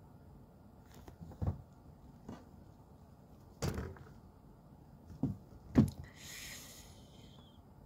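A handful of short, dull knocks and thumps, the loudest about six seconds in, followed by a brief hissing rustle.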